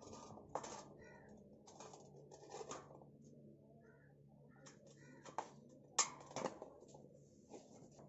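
An old rubber bicycle tyre being pulled and worked off a rusty steel wheel rim by gloved hands: scattered scrapes and rubbing, with sharp clicks, the loudest about six seconds in.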